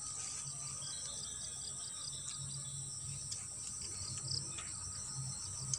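Insects chirring in the vegetation: a steady high-pitched drone with a pulsing chirp beneath it that repeats a few times a second.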